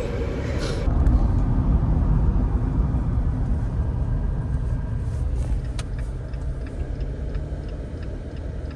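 A car driving: a steady low rumble of engine and road noise that eases slightly toward the end.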